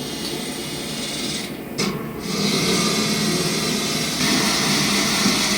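Power tool working on steel, running steadily with a brief pause about a second and a half in, most likely making the air-intake hole in the stove's tank.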